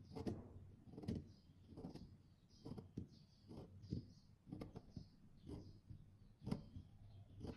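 Craft knife blade scraping and crumbling a cake of pressed white cosmetic powder, in soft repeated strokes about one a second.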